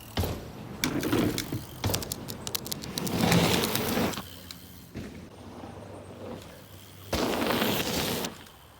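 Mountain bike ridden down a dirt jump trail: rushing tyre and wind noise that swells and fades, with rattling clicks from the bike about two seconds in and a loud rush about seven seconds in.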